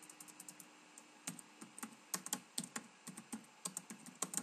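Typing on a computer keyboard: a few quick, light key taps at first, then firmer keystrokes at an uneven pace from about a second in.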